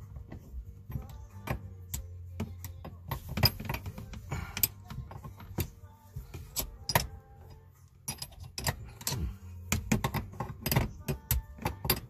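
Irregular metallic clicks and clinks of a hand wrench on the mounting hardware of an aftermarket shifter box while it is tightened, with background music.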